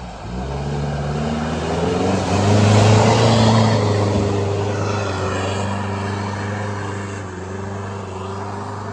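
A pickup truck's engine rising in pitch as it accelerates through deep mud, loudest as it passes about three seconds in, then fading as it pulls away. Its tyres churn and splash through the mud and puddles.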